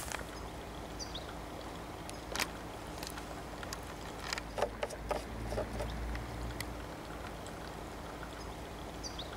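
Light clicks and knocks of hand handling as the petrol trimmer's oil dipstick is pulled and wiped and a plastic fuel can is lifted to it, over a quiet outdoor background with a faint low rumble. Two short high descending chirps come about a second in and near the end.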